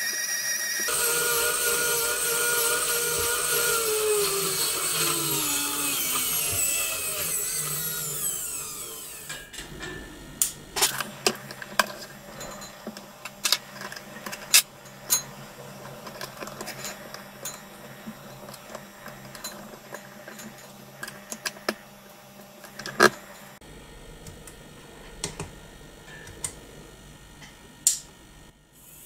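Small electric motor of a homemade coil-winding machine running with a whine that falls steadily in pitch as it slows, dying away about eight seconds in. Then a scattering of sharp clicks and taps as the machine and wire are handled, with the loudest near the middle and near the end.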